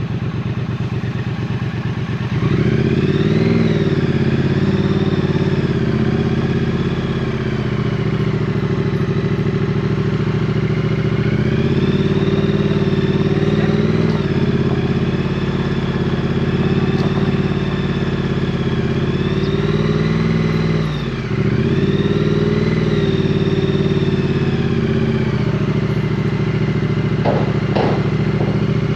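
Triumph Street Twin's parallel-twin engine running at low revs, then the note rises about two seconds in and the bike rides on, its pitch rising and falling several times as the throttle opens and closes. There is a brief drop in the engine note about two-thirds of the way through.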